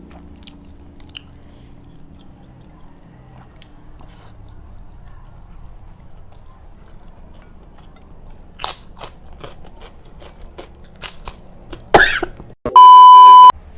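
Close-miked eating sounds: quiet chewing, then a run of sharp mouth clicks and smacks from about nine seconds in. Near the end a loud, steady electronic beep lasting under a second cuts in and stops abruptly.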